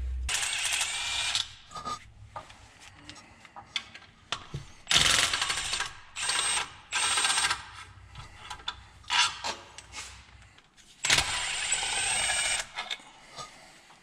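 Power tool with a 14 mm socket running in about five short bursts, each with a thin high motor whine, backing out the accessory bracket bolts. Light metal clinks come between the bursts.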